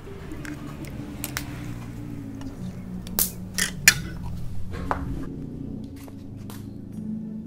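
Raw chicken pieces dropped one after another into seasoning liquid in a large metal wok: wet slaps and knocks against the pan, the loudest a few in quick succession about three to four seconds in.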